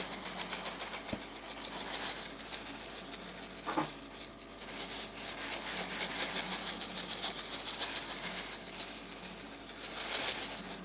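Breadcrumbs being sprinkled over a gratin dish: a light, rapid pattering.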